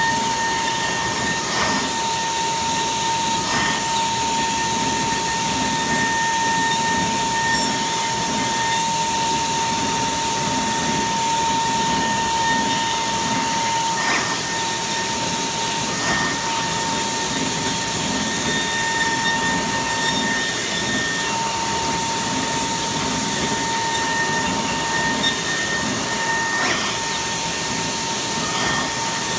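Milling spindle of a Kongsberg XP cutting table spinning at 55,000 rpm while routing 1-inch Gator foam board: a steady high whine over a rushing cutting noise, with a few brief clicks as the head moves.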